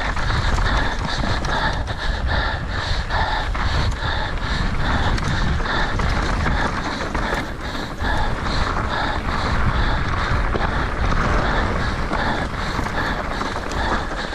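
Mountain bike riding fast over rough trail, with steady wind and tyre rumble on the camera microphone and the rider's heavy panting in a regular rhythm of about two breaths a second.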